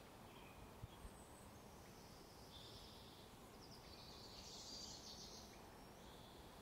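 Near silence: faint outdoor ambience with distant birds chirping now and then, a little louder around the fifth second.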